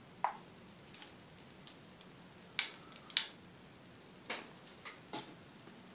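Faint room tone with about seven scattered small ticks and clicks, irregularly spaced, the loudest two a little past the middle.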